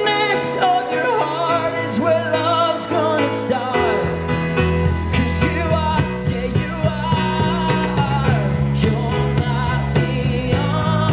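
Pop-rock band music: a wavering lead melody over guitar, with bass and a steady drum beat joining about four seconds in.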